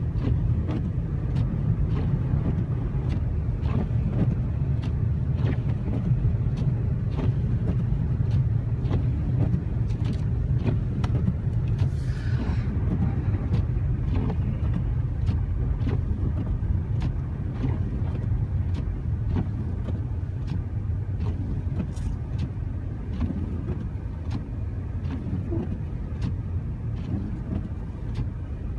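Infiniti G37x coupe driving through heavy snow: a steady low engine and tyre rumble with frequent short clicks, easing off a little over the last several seconds.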